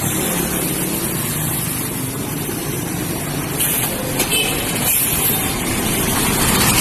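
A bus engine running in road traffic: a steady rumble with tyre and wind noise, and two short high hisses midway.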